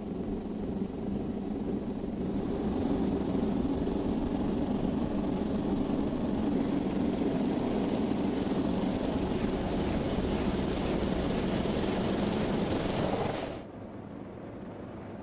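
Automatic car wash heard from inside the car's cabin: a steady low rush of rotating wash brushes and water spray against the bodywork. It cuts off suddenly near the end, leaving a quieter hum.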